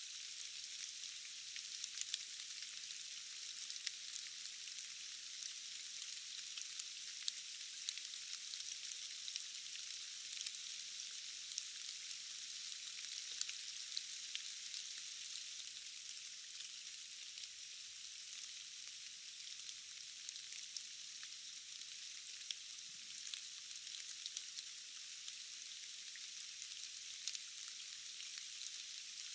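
Steady forest rain: an even, thin hiss with no low end, dotted with frequent sharper ticks of individual drops.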